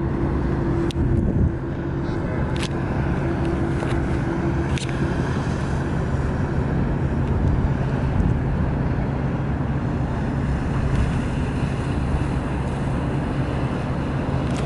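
Steady low hum of a boat engine running out on the water, with a few faint clicks in the first few seconds.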